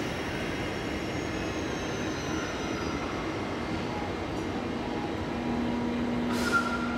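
Steady rumbling noise of a station platform beside a Deutsche Bahn ICE train. About five and a half seconds in, a steady low hum sets in, and a short hiss follows about a second later.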